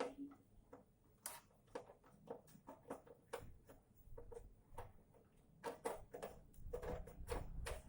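Irregular light clicks and knocks, some with a brief ring, from tools and parts being handled on a power amplifier during repair; the knocks come more thickly near the end.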